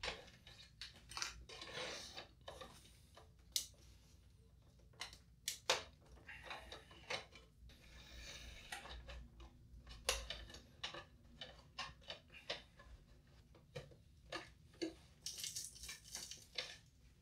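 Faint scraping, clicking and knocking of plastic: a guitar pick is worked into the seam where a CD-ROM drive's bezel is glued to a Macintosh SE's plastic front bezel, and the stuck drive is gripped and pushed.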